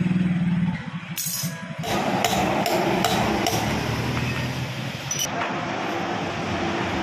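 A steady motor hum that stops under a second in, then a series of sharp metal taps about half a second apart, typical of a new wheel bearing being tapped into a scooter's front hub.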